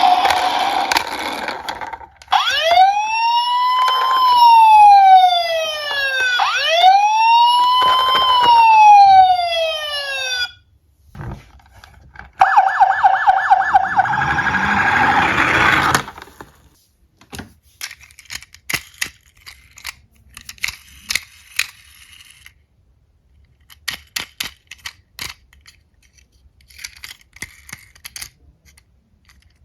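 Emergency-vehicle siren sounding as a wail, twice rising and falling over about four seconds each, then a rapid warble for a few seconds. After that, scattered light clicks and rattles of small diecast toy cars.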